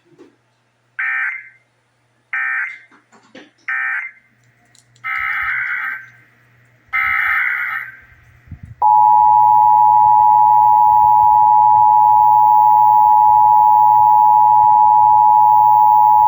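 Emergency Alert System tones. First come three short bursts of screeching digital data, the end-of-message code closing one test, then two longer data bursts that head the next test. About nine seconds in, the steady two-tone EAS attention signal starts (853 and 960 Hz sounded together), loud and unbroken, and runs on past the end.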